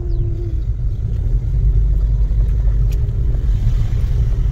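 Steady low road and engine rumble heard inside the cabin of a car driving slowly along a lane.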